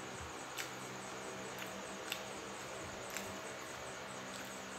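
Quiet eating sounds: a handful of short, sharp clicks spaced about a second apart, from chewing and from fingers pulling apart a piece of fried chicken, over a steady faint hiss and low hum.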